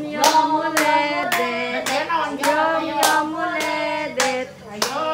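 A group singing a birthday song together while clapping in time, about two claps a second.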